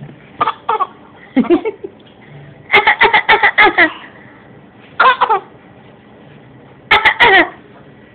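A baby laughing in about five short bursts, the longest a quick run of laughs about three seconds in.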